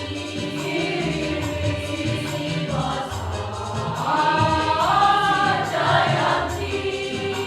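A choir singing in parts, swelling to a louder, higher passage about four seconds in.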